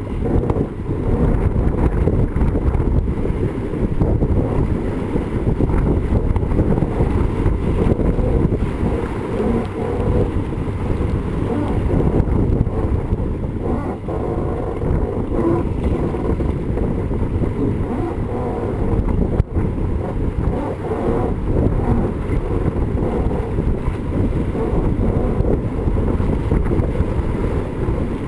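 Steady wind rumble buffeting the microphone of a camera mounted on a racing sailboat under sail, with water rushing and splashing past the hull.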